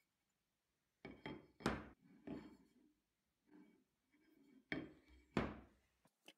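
A thick aluminum bar knocking and clattering against a workbench top as it is handled and set down. The knocks come in two clusters, with the loudest about two seconds in and about five and a half seconds in.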